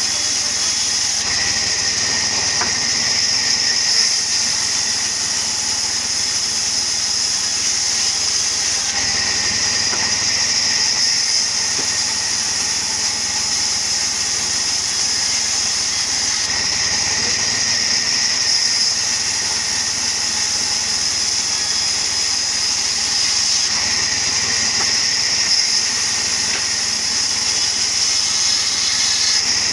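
Sawmill wood-cutting machine running steadily with a constant high whine. About every seven or eight seconds a second, lower whine comes in for two or three seconds.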